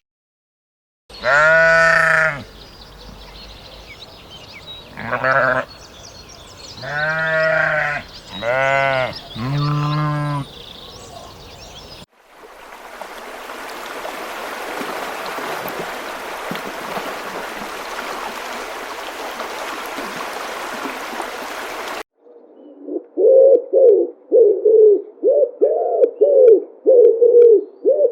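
An animal bleating: five calls in the first ten seconds, the first the longest. Then about ten seconds of steady noise, and near the end a fast run of short, low, repeated calls, about two a second.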